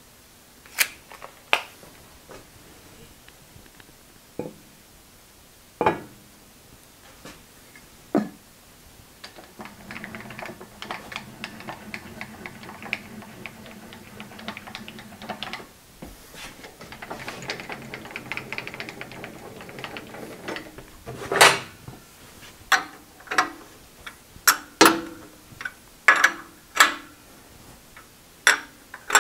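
Metal workshop handling noises: scattered clicks and knocks, then a steady hum for several seconds in the middle, then a quick run of sharp metal clanks and knocks near the end as the mill table and tooling are set up under the drill press.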